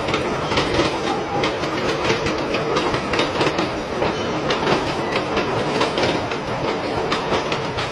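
Factory production-line machinery running with a steady, dense clatter of rapid, irregular clicks and knocks.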